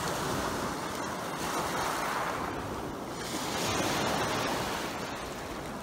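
Small Lake Superior waves washing over a beach of wet, rounded pebbles, the wash rising and falling in slow surges.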